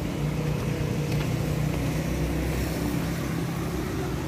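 Steady low rumble of a motor vehicle engine running, with no changes.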